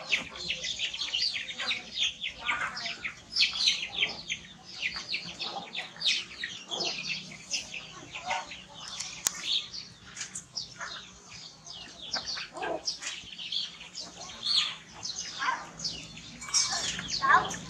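Busy, overlapping chirping of many small birds, going on without a break, with a few lower calls here and there.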